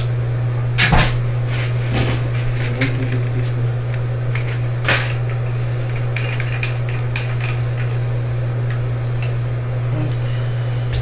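Plastic toilet flush-valve parts being handled and fitted together: scattered plastic clicks and knocks, the loudest about a second in and another about five seconds in, over a steady low hum.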